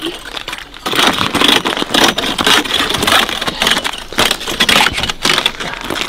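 Hand ice saw and ice chisel working a hole through sea ice: a steady run of crunching, scraping metal-on-ice strokes with slush in the hole.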